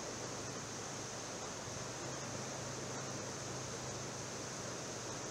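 Steady, even outdoor rush of noise with a faint low hum underneath.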